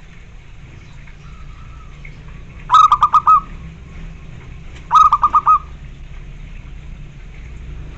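Zebra dove cooing: two calls about two seconds apart, each a quick run of about five short, clipped notes.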